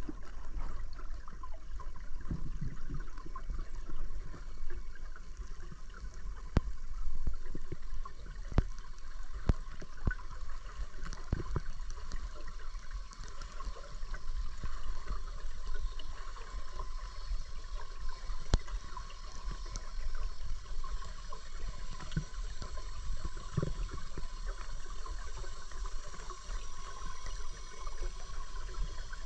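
Underwater sound through a camera's waterproof housing: a muffled, steady rush of river water with a low rumble, broken by many scattered small clicks and crackles.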